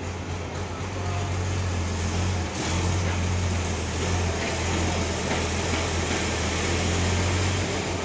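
Forklift engine running steadily with a low hum, a little louder from about two and a half seconds in.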